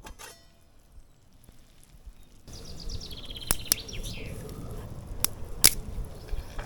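A small songbird sings a fast, descending trill of high notes over an outdoor background, while a campfire gives several sharp pops and cracks.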